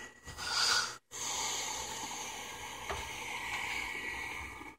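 Steady hiss of the running JBJ 28-gallon Nano Cube aquarium, heard close to its hood, after a brief rustle of handling in the first second.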